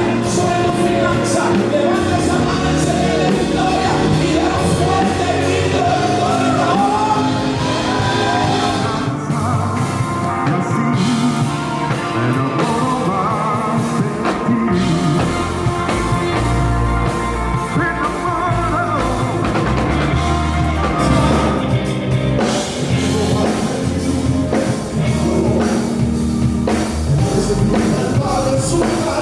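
Band music with a singing voice over steady bass and drums: a worship song.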